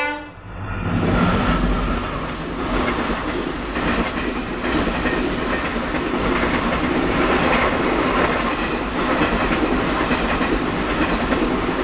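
Indian Railways passenger train coaches passing at speed, the wheels clattering over the rail joints in a steady loud rumble that builds to full loudness about a second in.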